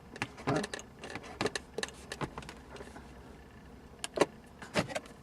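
Light plastic and metal clicks and knocks from the Porsche 996 center console lid and its aluminium repair hinge being handled, in a scattered string with the two sharpest about four and five seconds in.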